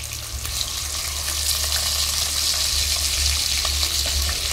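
Pieces of boal fish sizzling in hot oil in a wok as they finish frying, with light scrapes of a plastic spatula lifting them out. The sizzle grows louder about a second and a half in, over a low steady hum.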